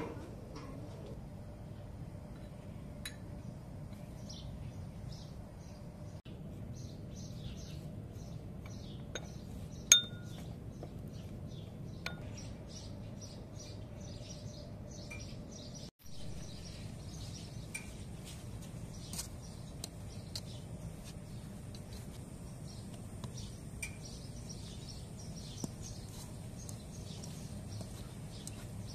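Small birds chirping over a steady low background, with a few light clinks of dishes and one sharp clink about ten seconds in.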